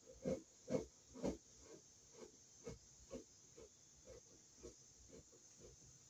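Screwdriver turning a screw on an electrical receptacle, giving a short squeak with each turn of the wrist, about two a second, louder over the first three turns and then fainter.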